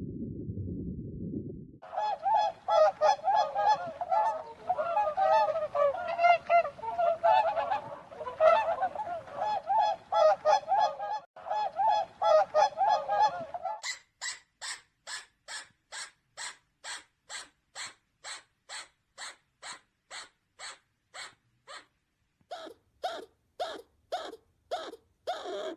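Geese honking, many overlapping calls, after a short low rumble at the start. About halfway through it changes abruptly to a regular series of short, sharp, high calls, two or three a second, with a few more short calls near the end.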